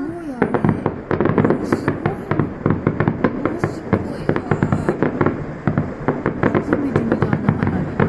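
Fireworks crackling: a dense, rapid stream of small pops that starts about half a second in and keeps going without a break.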